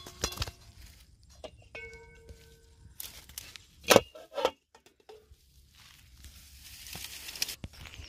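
Metal lid clanking down onto a black metal pan holding live quail: a sharp clank about four seconds in, a second lighter clack just after, and a brief metallic ring. Lighter metallic taps ring out earlier, and dry brush rustles near the end.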